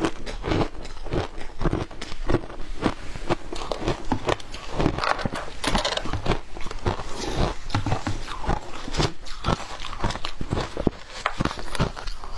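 Frozen shaved ice being bitten and crunched in the mouth, a rapid, continuous crackle of breaking ice, mixed with a metal spoon scraping and scooping through the ice in a plastic tub.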